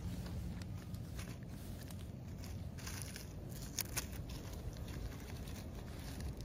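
Dry leaf litter and twigs rustling and crackling under gloved hands and a knife as a wild mushroom is cut from the forest floor, with a couple of sharper snaps near the middle.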